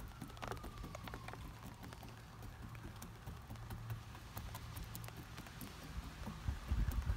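Light rain pattering as scattered irregular ticks, mixed with the soft dabbing of a bristle brush stippling polyester resin into glass-fibre matting.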